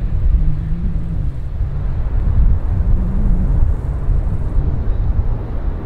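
Low, steady rumble of a rear-engined jet airliner rolling out along the runway just after touchdown.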